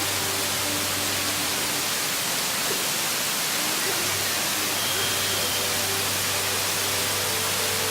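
Waterfall rushing: a steady, loud wash of falling water with no breaks.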